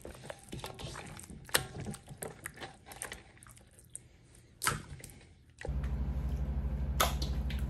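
Soft wet squishing and light clicks of hands turning pork steaks in a stainless steel bowl of vinegar-and-seasoning marinade, with one sharper click about four and a half seconds in. Near the end a steady low hum sets in.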